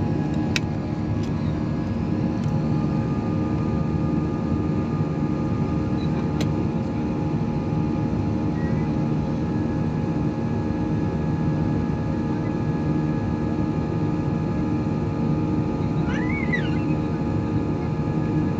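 Steady drone of an Airbus A320-family airliner's jet engines and rushing air, heard inside the passenger cabin, with steady hums running under it. About three-quarters of the way through, a brief high wavering sound rises and falls.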